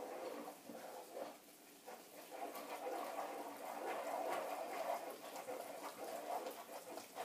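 Wooden spoon stirring thick choux paste in a saucepan, a faint scraping with light knocks against the pan, as the flour just added to the hot milk and butter is worked into a smooth dough. The stirring eases briefly about a second and a half in.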